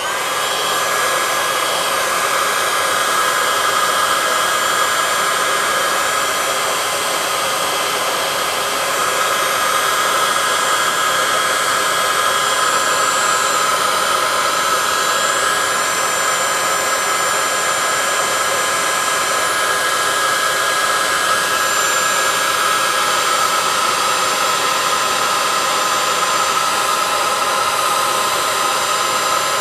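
Electric heat gun switching on and blowing steadily, shrinking glue-lined heat-shrink tubing over a motorcycle clutch cable. Its fan gives a steady whine on top of the rush of air.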